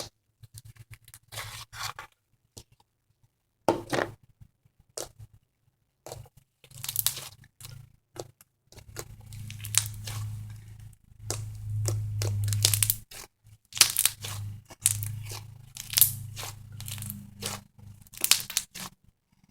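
Thick foam slime being stretched, squished and pulled apart by hand, giving irregular crackling, tearing pops. A low steady hum sits underneath from about nine seconds in.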